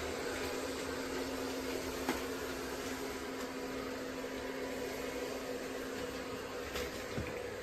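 ECOVACS DEEBOT X9 Pro Omni robot vacuum running with a steady motor hum and hiss, and a faint click about two seconds in.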